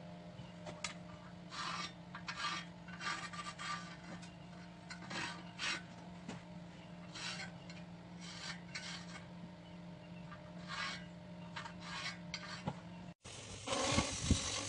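Short, irregular strokes of a hand tool scraping or rubbing, about one or two a second, over a steady low electrical hum. About thirteen seconds in the sound cuts to a louder, continuous rushing noise.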